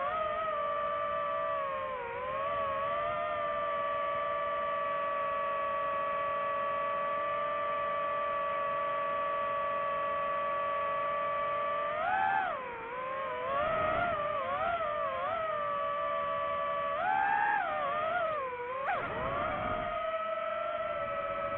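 DJI FPV drone's motors and propellers whining at a steady pitch. Near the middle and again toward the end, the pitch wavers up and down as the throttle changes.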